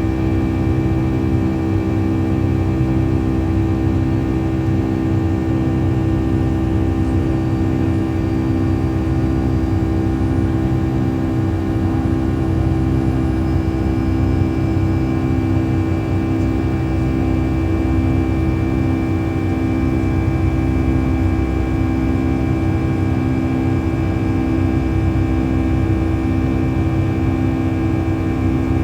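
Steady drone of a Boeing 757-200's jet engines heard from inside the cabin: a low rumble with a constant hum of steady tones on top, holding level with no change in power.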